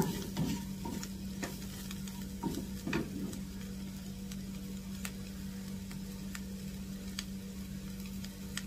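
Mixed vegetables sizzling in a non-stick frying pan, with a wooden spatula scraping and tapping against the pan in the first few seconds, then a steady sizzle with a few light clicks. A steady low hum runs underneath.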